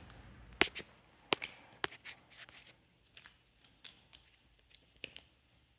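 Night vision gear being handled in the dark: a few sharp plastic-and-metal clicks, the loudest just over half a second in, then lighter clicks and rustling as a PVS-14 monocular is swapped in and set up.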